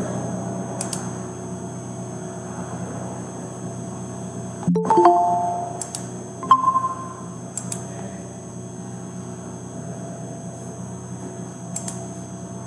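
Google Meet's participant-joined chime, a short electronic chime of a few notes about five seconds in, with a second brief tone a moment later. Under it are a steady electrical hum and high whine, and a few faint clicks.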